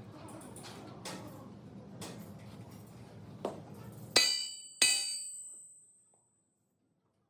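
Two sharp metallic clangs about half a second apart, each ringing on in several clear high tones and dying away over about a second and a half. Before them, a low steady hum with a few faint taps, which stops at the first clang.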